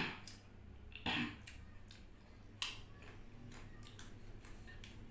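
Close-miked eating sounds: chewing with a run of small clicks and crunches, a louder short noise about a second in, and a sharp click about two and a half seconds in.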